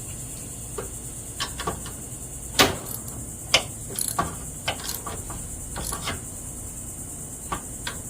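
Irregular metallic clicks and knocks of a wrench working on the mower's pedal bolts, the loudest two a little under 3 s and about 3.5 s in. Beneath them runs the steady high chirring of crickets.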